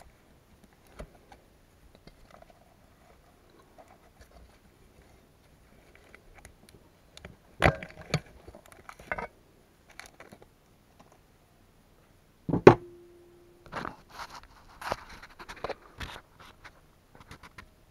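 Vice grips and a spark plug socket clicking and scraping against a Subaru EJ205 cylinder head while a valve spring is compressed for its retainer keepers. A pair of sharp metal clicks comes around the middle, and a single loud metallic clank later rings on briefly at one pitch.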